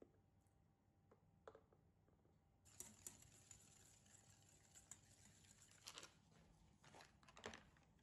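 Faint scraping and light clinks of a metal spoon stirring a powdered-sugar and milk glaze in a bowl, starting about two and a half seconds in after a couple of soft taps.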